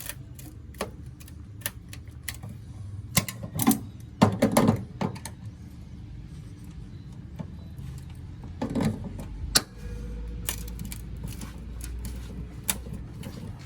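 Metal hand tools clicking and knocking irregularly against sheet metal, as dents in a crushed rocker panel are pulled out toward a screwed-on aluminum straight edge. The louder knocks come about four seconds in and again near nine seconds.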